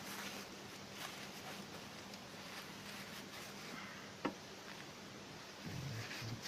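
Faint rubbing and handling noises of a tissue wiping old thermal paste off a graphics card's GPU die and heatsink plate, with one sharp click about four seconds in, over a low steady hum.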